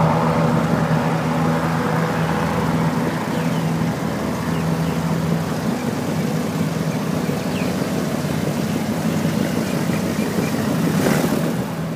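Airboat engine and propeller running steadily, a continuous droning hum as the airboats move past at low speed. A brief rushing swell comes near the end.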